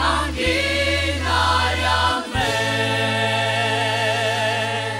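Church choir singing a gospel hymn in Armenian over low sustained accompaniment, closing the line on the word "angin" (precious), then holding a long final chord with vibrato from a little after two seconds in until it cuts off near the end.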